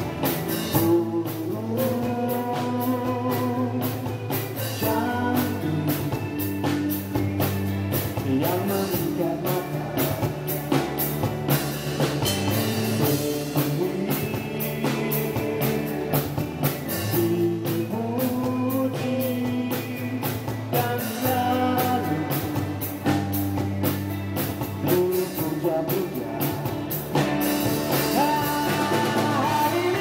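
Live rock band playing a song, with singing over keyboard, guitar and drums. The drums keep a steady beat throughout.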